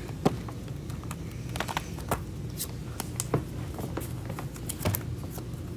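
Pokémon trading cards being handled and set down in piles: scattered light taps and rustles at an uneven pace, over a steady low hum.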